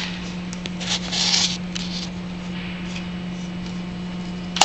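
Light handling clicks and a short hissy rustle as a deck clip and nail gun are set in place on the board, over a steady low hum. A sharp bang comes right at the end.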